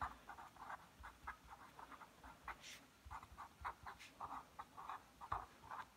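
Felt-tip pen writing on paper: faint, quick scratching strokes, several a second, as a line of words is written out.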